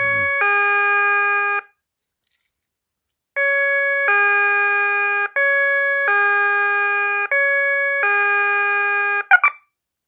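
KERUI wireless alarm siren horn sounding its alert-mode ding-dong chime: a short high note then a longer low note, repeated. It breaks off briefly near the start, then plays four more high-low pairs. A short plastic clatter comes just after the last one.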